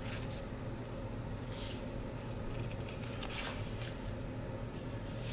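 Glossy sticker-book sheets being turned and handled by hand: soft, intermittent paper rustling and rubbing over a steady low hum.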